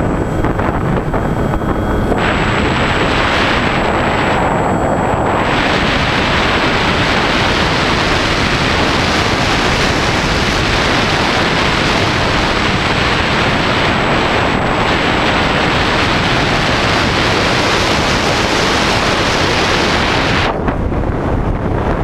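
Airflow rushing over the onboard camera of a Skywalker 1900 RC glider in flight, a loud steady hiss. For the first two seconds the plane's electric motor whines; then the wind noise takes over, and its highest part drops away near the end.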